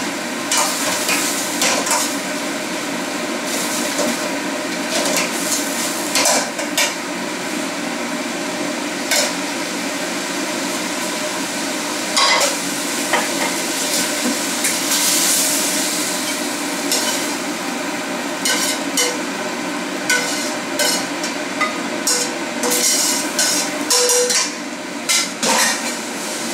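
Jumbo prawns sizzling as they fry in a thick tomato-ketchup sauce in a pan, with a metal ladle stirring and repeatedly clacking and scraping against the pan.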